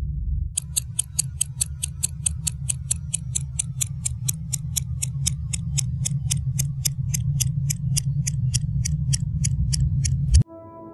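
Clock ticking fast and evenly, about five ticks a second, over a steady low drone. Both cut off suddenly with a single loud hit near the end, and soft sustained music tones follow.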